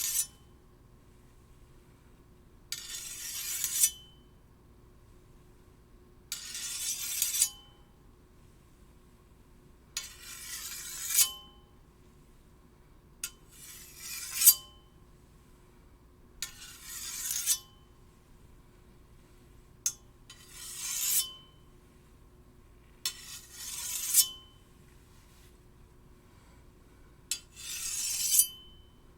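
Steel blade drawn along another steel blade in about eight slow scraping strokes, three to four seconds apart. Each stroke grows louder and ends with a sharp clink and a brief metallic ring.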